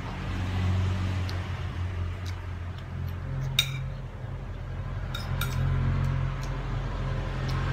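A metal spoon clinking and scraping against a plate as food is scooped, a few sharp clicks with the loudest about three and a half seconds in, over a steady low hum.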